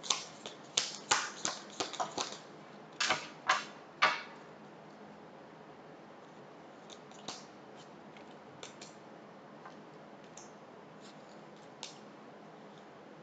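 Tarot cards being shuffled by hand: a quick run of sharp card snaps and slaps over the first four seconds or so, then only a few faint clicks of cards being handled.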